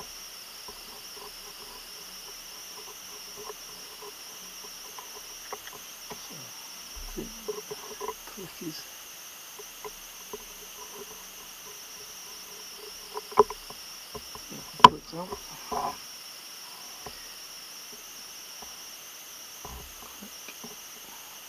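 Small scattered clicks and taps of a steel watchmaker's screwdriver on the parts of an Omega cal. 344 watch movement while a click is being taken off, with one sharp click about 15 seconds in, over a steady faint high-pitched hiss.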